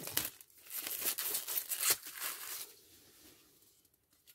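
Plastic shrink-wrap being torn open and crinkled off a sealed eyeshadow palette, crackling and tearing for about two and a half seconds, then fading away.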